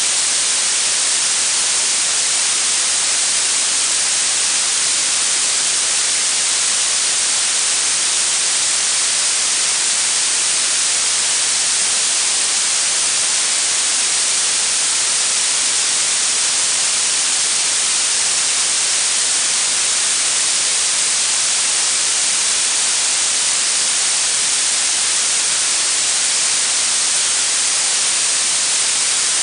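Blue noise: a steady, even hiss weighted toward the high frequencies, much like fine spray. It does not change at all.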